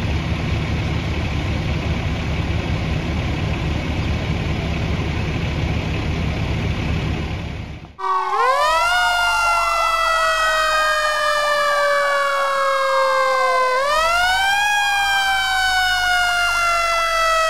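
Fire truck engines running with a steady low rumble. After a cut about eight seconds in, several fire truck sirens sound together: one wail rises quickly and falls slowly, then winds up again, while another siren warbles quickly over it.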